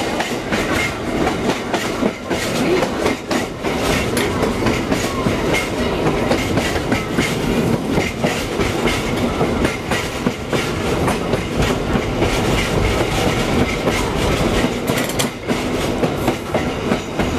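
Electric streetcar running along its track, heard from on board: a steady rumble of wheels on rail, with many irregular clacks and rattles from the rail joints and the car body.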